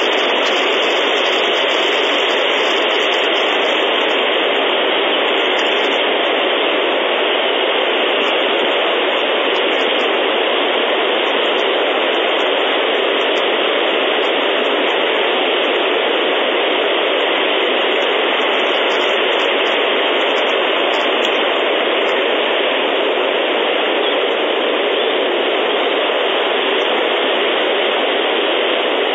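Steady, even hiss of noise, like static, with no bird calls standing out of it.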